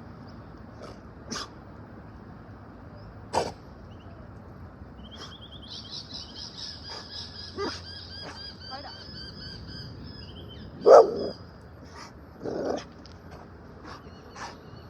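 A dog barks: one short bark a few seconds in, then two more close together near the end.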